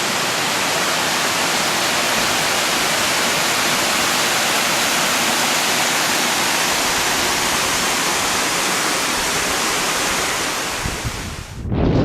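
Steady rush of a waterfall pouring into a pool. Near the end it cuts off abruptly and gives way to gusts of wind buffeting the microphone.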